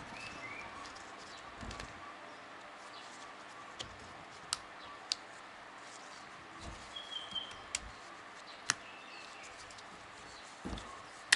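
Steel piston ring clicking against the piston as it is worked into its groove by hand, with several sharp separate ticks and soft handling thumps from gloved hands.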